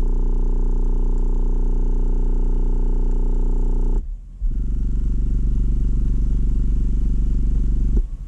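Subwoofer with passive radiators playing a steady, loud low bass note in two blocks of about four seconds with a short break about four seconds in, with a buzzing rattle riding on the bass. The buzz is the mechanical noise that re-gluing the gasket has not cured, which the owner takes for one passive radiator coming apart.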